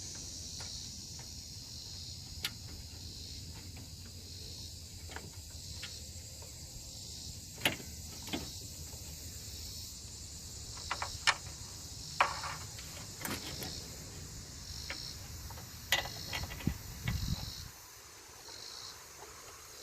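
Scattered sharp clicks and clinks of hand tools and metal latch parts being fitted back together, over a steady chirring of crickets. A low background rumble drops away near the end.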